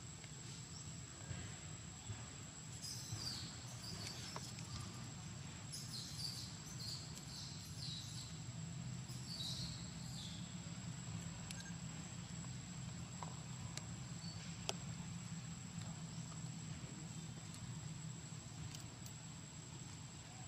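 Faint forest ambience: an insect's steady high whine, with a run of short high chirps about 3 to 10 seconds in and a few soft clicks later. A low steady hum sits underneath.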